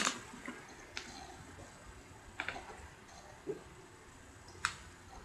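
A few faint, scattered clicks and soft mouth and handling noises from eating a burrito and drinking from a plastic water bottle, one small sound every second or so.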